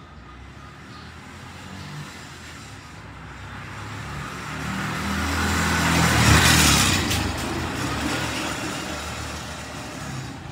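A motor vehicle passing by: its engine hum and road noise swell slowly to their loudest about six seconds in, then fade.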